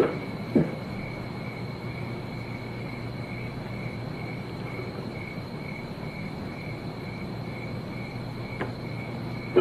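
Crickets chirping steadily in a high, evenly pulsing trill over a low steady hum, with a couple of soft knocks about half a second in and near the end.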